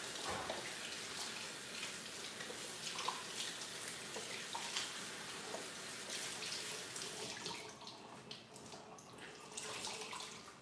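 Kitchen faucet running into the sink while a skillet is rinsed out under it, with small clinks; the water sound drops for the last couple of seconds.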